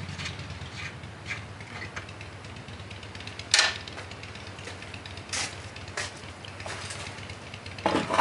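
Scattered metal clinks and knocks as steel parts are handled on a cast-iron vise and its stand, with one sharp clank about three and a half seconds in. A low idling-engine hum from street traffic fades out in the first second.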